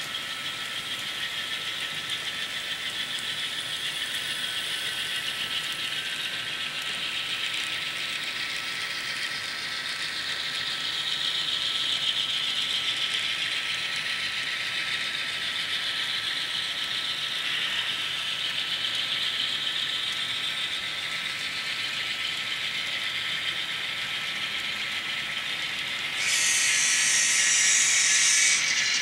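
Model trains running on a layout: a steady mechanical rattle of small metal wheels and running gear on the rails. About 26 seconds in it becomes abruptly louder and brighter as a model diesel locomotive comes by on the nearest track.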